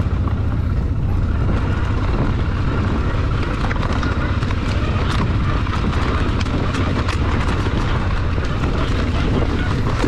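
A small ATV's engine running at low speed with a steady low rumble, and many short clicks and knocks from the machine over rough ground from about a second and a half in. The ATV is going downhill with its wheels locked, sliding because the tyres are not gripping.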